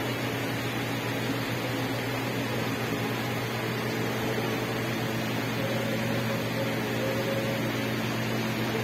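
Steady hum and hiss of metro-station background noise, typical of ventilation, with a low drone throughout and faint higher tones that come and go about halfway through.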